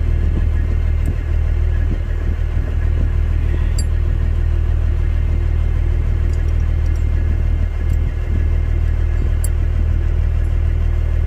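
Semi-truck diesel engine idling with a steady low rumble, with a few faint clinks from the steel tire chains being fitted on the dual wheels.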